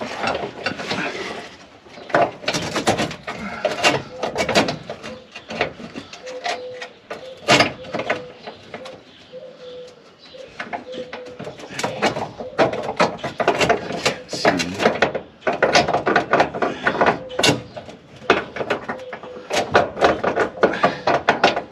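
Hand tools clicking and clanking against metal in irregular bursts, as bolts are worked on a truck.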